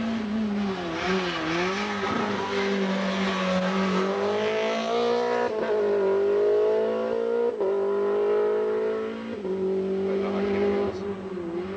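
Group A race car's engine at full throttle up a twisting climb, revs rising and then dropping sharply at upshifts, twice in the middle, with the pitch dipping and swelling through the bends.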